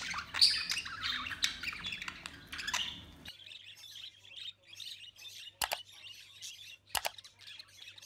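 Budgerigars chirping and warbling busily, many short calls overlapping. Two sharp clicks come in the second half.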